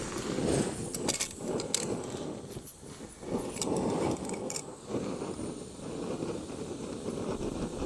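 Small gas canister stove burner running with a steady hiss. A 750 ml titanium pot clinks and scrapes several times as its handles are moved and it is set on the burner, a few clinks about a second in and more around four seconds in.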